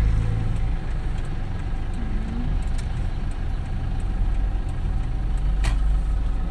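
Road vehicle running slowly in heavy traffic: a steady low engine and road rumble, with one sharp click about five and a half seconds in.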